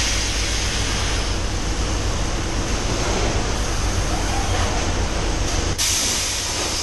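Robotic palletizing line for 5-litre water bottles running: a steady low machinery hum with the robot and conveyors at work, and a sharp hiss that starts at the beginning, fades over a second or so, and comes back about six seconds in.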